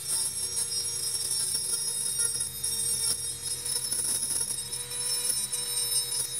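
High-speed rotary tool running with a small abrasive wheel scrubbing across a thin metal plate: a steady high-pitched whine with a grinding rasp.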